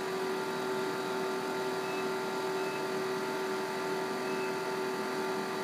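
Steady machine hum of the production line the inkjet printer is mounted on, with a constant mid-pitched tone throughout and a few faint, short high beeps.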